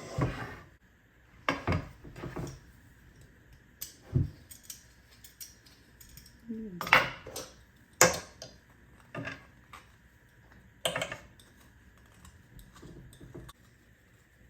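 Kitchen utensils and dishes being handled: a series of separate clinks, knocks and clatters at irregular intervals.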